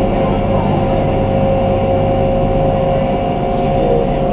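Resort ferry boat's engine running steadily underway, a loud constant drone with a steady whine, heard from on board.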